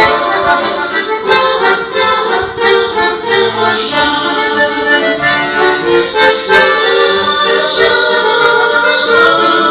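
Accordion playing a Russian folk-song tune in sustained chords, with little or no singing.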